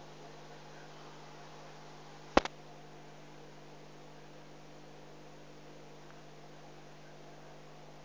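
Steady low electrical hum with a faint hiss, broken by one sharp click about two and a half seconds in.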